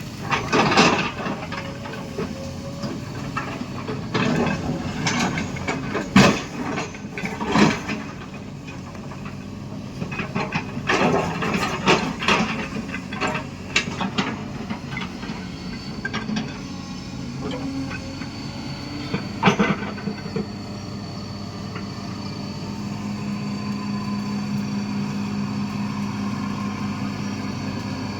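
Excavator's diesel engine running under load, with repeated sharp knocks and scrapes from the bucket working into the hillside through roughly the first twenty seconds. Near the end the knocks stop and only a steadier engine hum remains.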